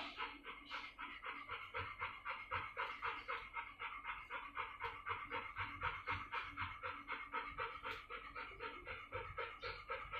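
Dog panting rapidly with its mouth open and tongue out, an even rhythm of about four to five breaths a second.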